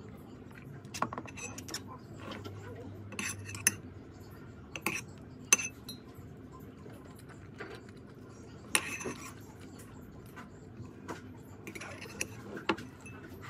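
Metal spoon clinking and scraping against a bowl during a meal: scattered sharp clinks at uneven intervals, the loudest about five and a half seconds in.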